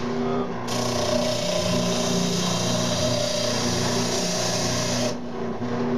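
Powertec benchtop oscillating spindle sander running with a steady hum. A loud hiss comes in about a second in and stops about a second before the end.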